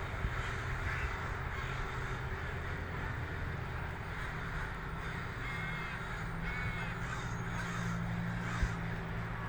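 A huge flock of crows cawing together, a dense, continuous chorus of overlapping caws with no single call standing out. This is the flock gathering at sunset to roost.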